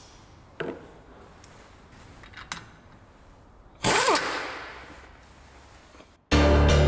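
A few light metallic clinks of tools on a car's brake assembly in a quiet workshop. About four seconds in comes a loud sound falling in pitch over a hiss that fades away, and near the end a sustained music chord starts suddenly.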